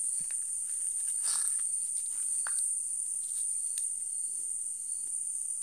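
Crickets trilling in a steady, high-pitched drone, with a few faint clicks and rustles.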